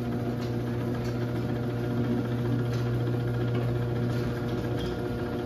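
Chamberlain D2101 half-horsepower chain-drive garage door opener running with a steady hum as it lowers the door during its down-travel limit test.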